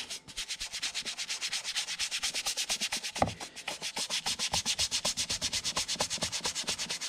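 Rapid back-and-forth rubbing on a leather knife sheath, working in a coat of saddle soap, at about seven strokes a second, with a soft knock about three seconds in.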